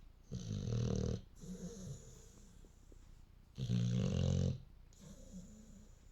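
Steady sleep snoring: two loud buzzing snores, each about a second long and about three seconds apart, with softer breaths between them.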